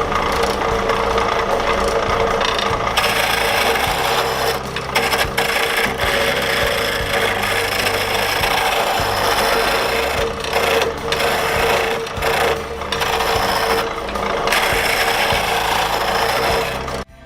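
Pine blank spinning on a wood lathe while a tool works it, giving a continuous rasping over the lathe's steady hum. The rasp drops out briefly several times as the tool comes off the wood.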